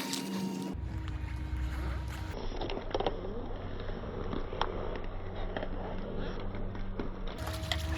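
Car engine rumbling low as the car rolls slowly, its tyre crushing food items with scattered crackles and a few sharp cracks. The sound changes abruptly a few times where shots are cut together.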